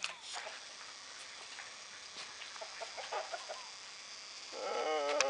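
Chickens calling: a few faint short clucks, then a louder, long, wavering call that starts near the end.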